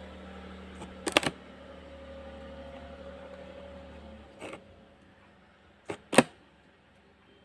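Sharp clicks: a quick cluster about a second in, one at about four and a half seconds, and a pair near six seconds, the last the loudest. Under them runs a steady low hum that stops about four seconds in.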